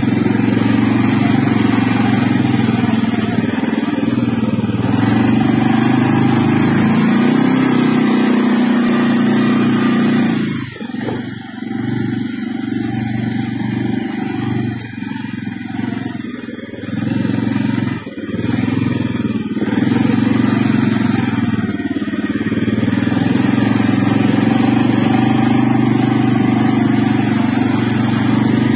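CFMoto CForce 600 ATV's single-cylinder engine running while riding, held at a steady throttle; from about ten seconds in the throttle is rolled off and back on several times, the engine note dropping and picking up, before it settles back to a steady pull near the end.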